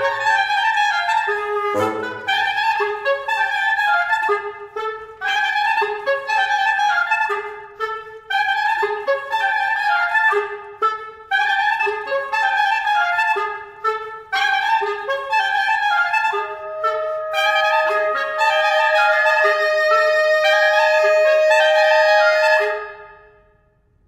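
Reed quintet (oboe, clarinet, soprano saxophone, bass clarinet, bassoon) playing fast, repeated runs and short accented notes in the upper voices, with sharp low accents from bass clarinet and bassoon in the first couple of seconds. From about two-thirds of the way through, the soprano saxophone holds one long loud note under the oboe and clarinet figures, and the music ends about a second before the close.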